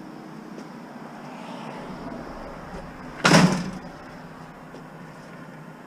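A single loud bang about three seconds in, with a short ring-out, over a steady low hum.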